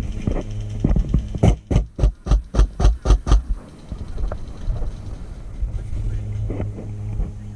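An airsoft gun fired in quick semi-automatic shots, about eight sharp cracks at roughly four a second, over a steady low hum.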